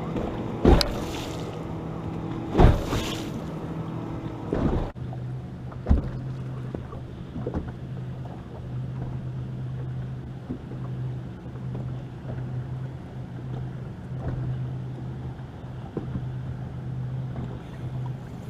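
Bass boat on the water: a few sharp knocks on the boat in the first five seconds, then a steady low hum of the electric trolling motor holding the boat in place.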